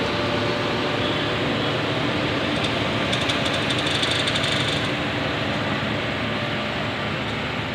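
A steady machine hum under a broad even hiss, with brief light crackles in the middle.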